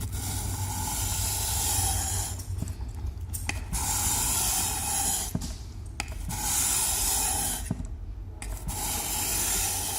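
Stainless steel knife blade in an angle guide drawn along the 400-grit side of a wet Trilancer whetstone: about five long, gritty grinding strokes, each lasting a second and a half to two seconds. There are brief light knocks between the strokes.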